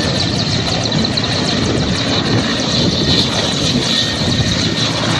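Mil Mi-8-family military transport helicopter running on the ground with its main rotor turning: a steady high turbine whine over the dense rotor and engine noise.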